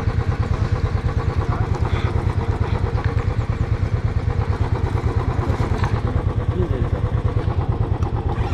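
Royal Enfield motorcycle engine running steadily, its exhaust beating in a fast, even pulse.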